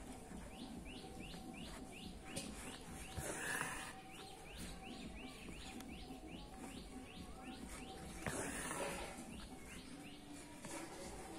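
A bird calling in a fast run of short rising chirps, about three a second, stopping near the end. Twice, a brief soft rustle of embroidery thread being drawn through cloth stands out above it.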